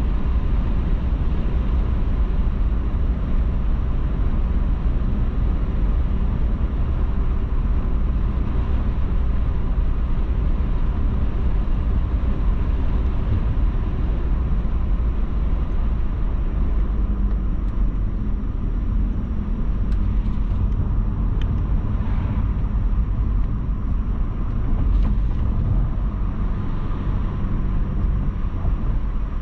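A car driving along a road, with a steady low rumble of engine and road noise.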